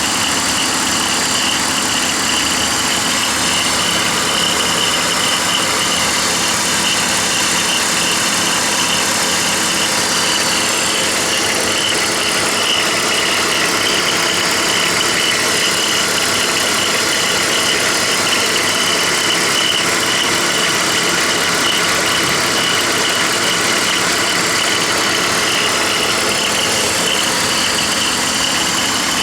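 BMW 325i E46 inline-six engine idling steadily, with a constant high-pitched whine from a worn idler (deflection) pulley on the accessory belt drive.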